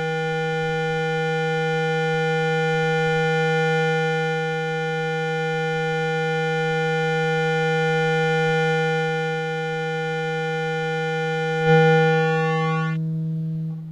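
Synthesized speaker-cleaner tone: a steady low buzzing tone played through a speaker to shake water and dust out of it. It swells briefly near the end, then its higher overtones drop away as it fades.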